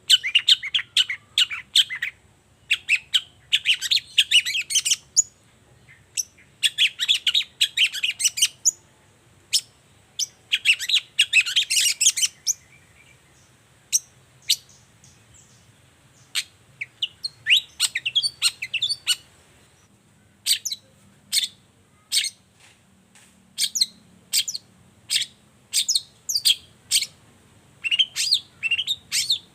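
Long-tailed shrike (cendet) singing: bursts of rapid chattering song about two seconds long, then in the second half a run of separate sharp notes about two a second.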